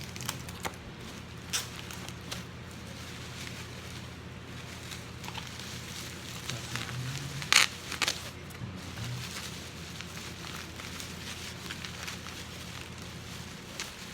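Handling of trading-card cases and packaging: scattered light clicks and rustles, with one sharp click about seven and a half seconds in, over a steady low hum.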